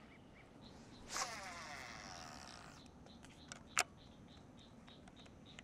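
A cast with a fishing rod: a swish about a second in, then the reel's spool whining as line pays out, falling in pitch and fading over nearly two seconds. A single sharp click comes near the four-second mark.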